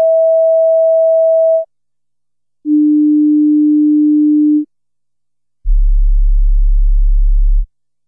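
Three steady pure test tones of about two seconds each with short gaps between, each lower in pitch than the last, the third a very low hum. They test whether headphones or speakers reproduce the low frequencies, down to about 20 Hz, needed to hear recorded heart sounds.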